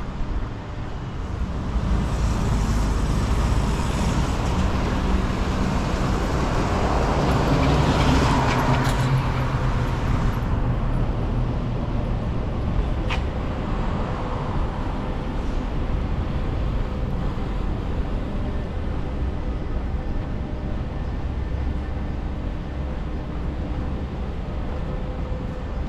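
Road traffic noise: a vehicle passes close by, building up and loudest about eight seconds in, then easing into a steady background rumble of traffic. A single sharp click comes about halfway through.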